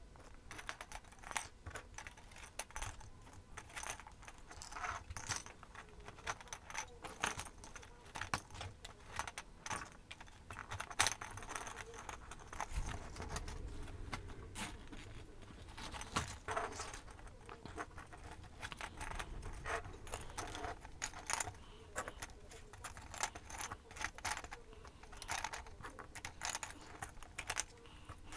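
Small Christmas ball ornaments clicking and clinking against each other and against a wire star frame as they are picked up off a table and pushed into it. The clicks come light and irregular, one every fraction of a second, with a sharper knock about eleven seconds in.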